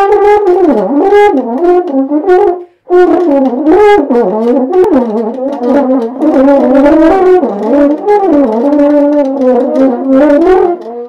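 Intro music: a solo brass instrument, horn-like, playing a moving melody, with a short break about two and a half seconds in.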